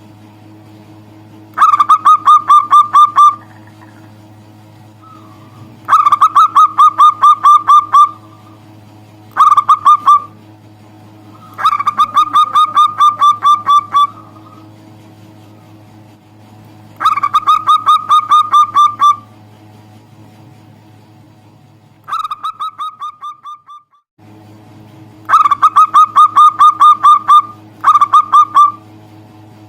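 Zebra dove (perkutut) cooing in about eight bouts of rapid, evenly repeated notes, each bout lasting one to two seconds, with pauses between bouts. A steady low hum runs underneath.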